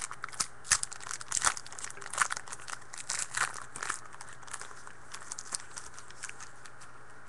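A Panini Rookies & Stars football card pack being torn open by hand, its wrapper crinkling in a quick run of sharp rustles that are loudest over the first four seconds, then lighter handling.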